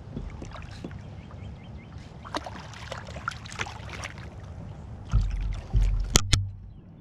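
A hooked catfish being fought and landed at the side of a fishing kayak: scattered splashes and light clicks over a steady low rumble, then about five seconds in a burst of heavy low thumps and two sharp knocks.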